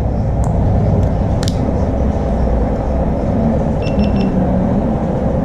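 Three short electronic beeps about four seconds in from a GoPro Hero 7 being powered on, as the camera hangs on its first start with the front screen not coming on. A couple of sharp handling clicks come earlier, over a steady low rumble of room noise.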